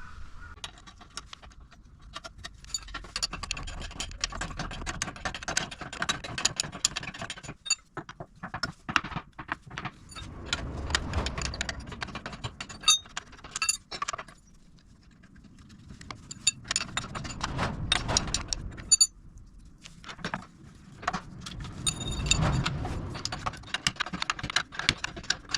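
Metal hand tools working on steel car parts: bouts of quick metallic clicking and rattling, each a few seconds long, broken by short pauses.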